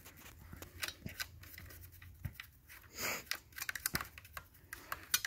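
A toothbrush scrubbing a Stihl chainsaw clean: faint, irregular scratching and clicking, with a short hiss about three seconds in.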